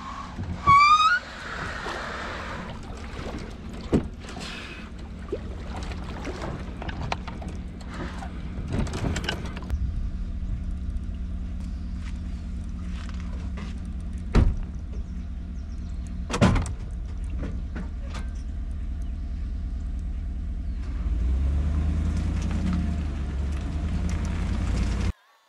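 Plastic fishing kayak dragged up into a pickup truck's bed, with a short rising squeal of the hull about a second in and several knocks and thuds as it settles and the doors shut. The pickup's engine then runs steadily and gets louder over the last few seconds as the truck moves off.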